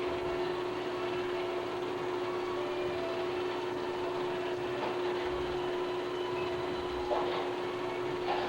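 Steady mechanical hum with one constant pitched tone over an even noise, and a couple of faint knocks near the end.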